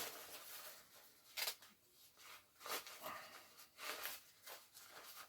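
Faint, short rustles and brushes of jacket fabric being handled and folded, several times.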